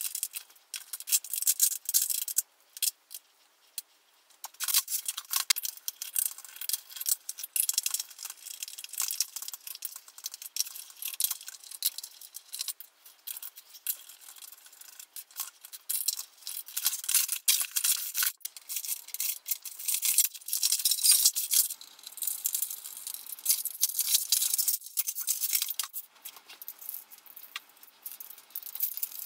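Fast, dense clatter and rattling of plastic parts, screws and a screwdriver as a Shark upright vacuum cleaner is taken apart, sped up by the time-lapse.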